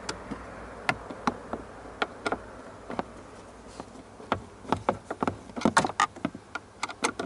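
Long Phillips screwdriver working a bolt in plastic dashboard trim: scattered clicks and taps of metal on plastic, coming quicker and thicker in the second half.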